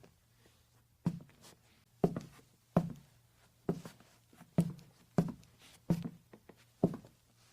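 Footsteps of a person walking on a wooden floor: eight steady steps a little under a second apart, each footfall a short low knock.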